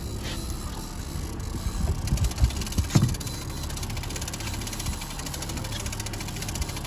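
Boat's outboard motor running steadily at trolling speed, with a few dull low thumps about two to three seconds in.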